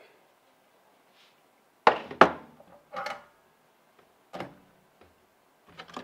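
A few sharp knocks and clacks of tools and a plastic slot-car track piece being handled and set down on a wooden workbench. The two loudest knocks come close together about two seconds in, with softer clacks about a second and two seconds later.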